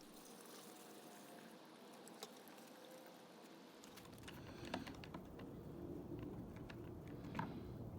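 Faint scattered light clicks and handling noises, with a low rustling rumble picking up about halfway through.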